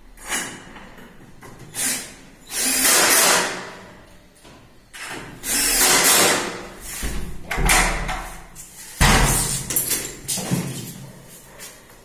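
Cordless drill-driver running in about six short bursts with pauses between, the longest about a second and a half, driving screws to fix a rim deadbolt lock case to a wooden door.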